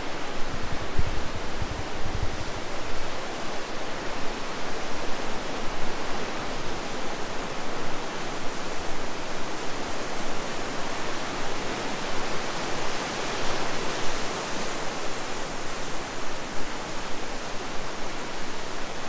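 Fast-flowing river water rushing steadily, an even unbroken noise.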